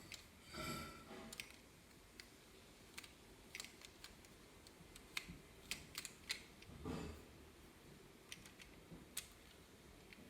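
Plastic Lego parts of a toy blowback pistol mechanism clicking and clacking as it is worked by hand, with scattered single clicks and two longer clattering rattles, about half a second in and near seven seconds.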